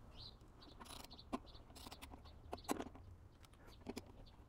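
A few faint, irregular clicks and knocks from a torque wrench tightening a mower blade bolt and the steel blade being handled on the mower deck.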